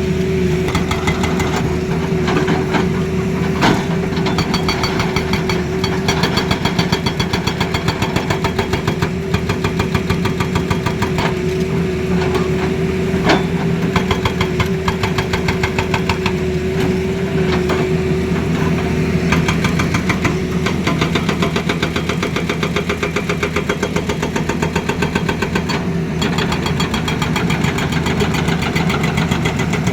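Tata Hitachi Zaxis excavator working, its engine running steadily under a rapid, even knocking rhythm, with a steady whine that dies away about two-thirds of the way through.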